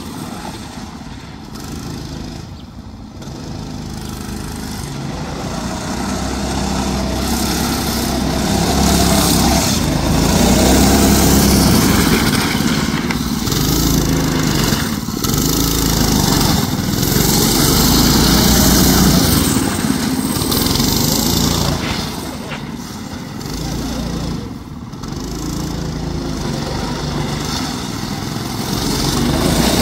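Predator 6.5 hp single-cylinder engine on a drift trike running under throttle as the trike rides by, growing louder over the first ten seconds as it comes near. It drops away for a few seconds about three-quarters of the way through, then rises again near the end.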